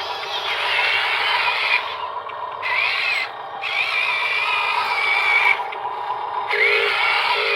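Small electric motor and gearbox of a radio-controlled construction model whining in bursts of one to two seconds with short pauses, the pitch rising and falling as the throttle changes.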